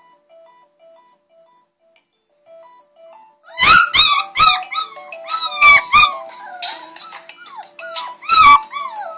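An alarm clock plays a simple beeping electronic melody. About three and a half seconds in, a puppy starts squealing along to it: loud, high whines and yelps, each falling in pitch, over and over.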